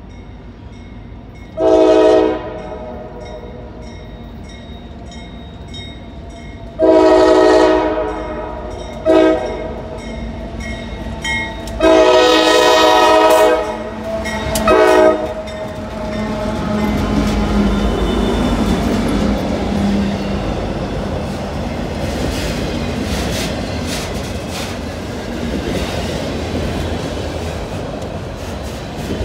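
Diesel freight locomotive's air horn sounding five blasts of several tones together, long ones mixed with short ones, as the train approaches. From about halfway in, the locomotives and a string of autorack cars roll past with a steady rumble and the clatter of wheels on the rails.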